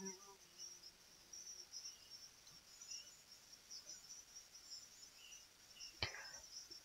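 Near silence: room tone with a faint high hiss, and a brief soft noise about six seconds in.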